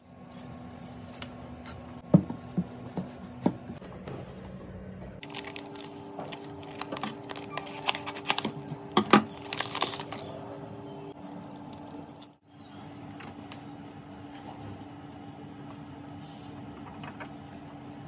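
Handling sounds of a twig fence and paper bedding: scattered sharp clicks and knocks with rustling, busiest about eight to ten seconds in, over a steady low hum.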